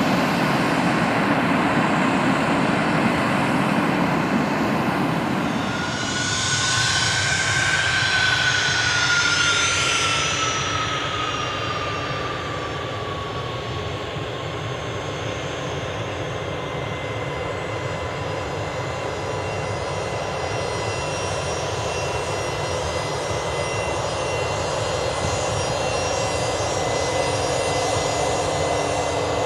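Fokker 100's Rolls-Royce Tay turbofan engines running as the jet taxis, a steady jet whine over a low rumble. Several seconds in, the whine rises briefly and then slides down in pitch, settling into a steady tone.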